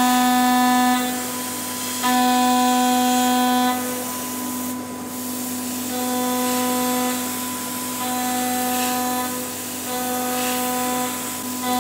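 A 12mm single-flute indexable insert end mill on a CNC router spindle at 15,000 rpm is facing an aluminium block. It gives a steady pitched whine that swells with each cutting pass and eases between passes, every second or two. An oil-mist coolant sprayer hisses throughout. The passes are louder in the first few seconds, on a deep 2.5mm step-down, and softer after that, on a lighter 0.5mm step-down.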